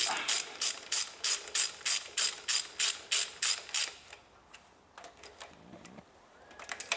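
Ratchet wrench clicking in a quick even rhythm, about three strokes a second, as it turns the last screw of a Rover K-series engine's coil pack; the clicking stops about four seconds in, leaving a few faint clicks.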